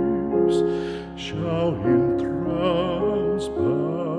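Background music: a slow, gentle song with a voice singing long notes with vibrato over sustained chords.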